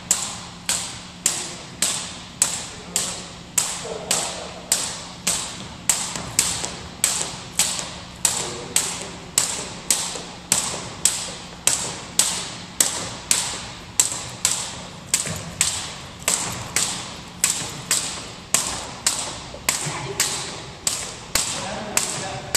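Double dutch jump ropes slapping a wooden gym floor as they are turned: a steady, even rhythm of sharp slaps, about two a second, each with a short echo off the hall.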